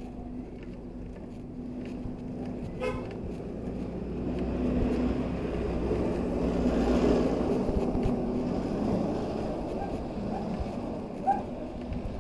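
Street traffic heard while riding a bicycle: a steady motor-vehicle engine hum, with a short horn toot about three seconds in. The noise swells in the middle as a vehicle draws closer.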